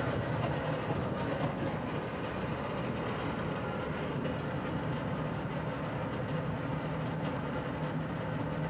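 Packaged air conditioning unit running with a steady hum and rushing air. Its three-phase blower motor is drawing low current because it is wired to spin in reverse.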